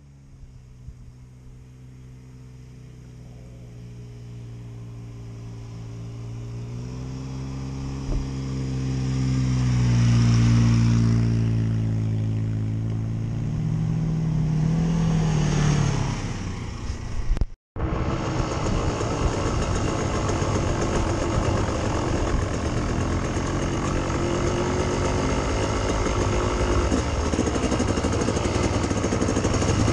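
Off-road vehicle engines, an ATV and a side-by-side UTV, coming up a dirt trail. Their running grows louder over the first ten seconds or so and shifts in pitch as they draw near. After an abrupt cut about seventeen seconds in, there is steady engine noise and wind from riding along the trail behind an ATV.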